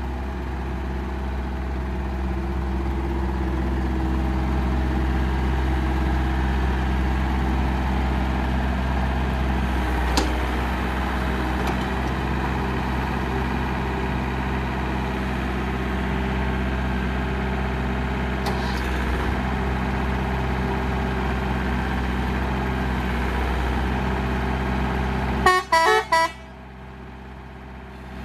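7-ton excavator's diesel engine running steadily under load. Near the end there is a quick rattle of sharp clicks, after which the engine sound drops sharply and is much quieter.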